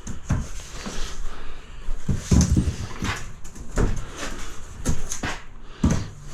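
Irregular knocks, bumps and scrapes from a fibre-cement sheet being handled into place, with a heavy thud about two seconds in and another near the end.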